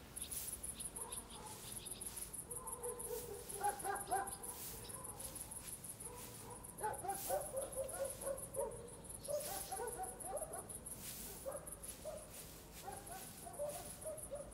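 Summer village yard ambience: insects chirping steadily, a dog barking in several short bursts, and the dry rustle of hay being tossed with a pitchfork.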